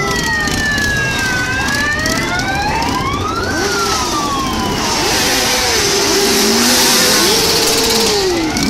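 Many motorcycle engines running and revving as a column of motorcycles rides slowly past, with a siren wailing up and down over them. The engine noise swells louder through the middle of the stretch.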